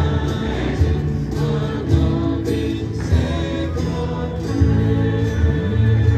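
Music with held notes over a steady beat of about two strokes a second.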